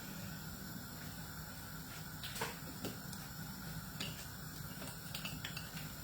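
Faint kitchen handling sounds: a few light clicks and taps, like a utensil or dish being touched, scattered over a steady low hum.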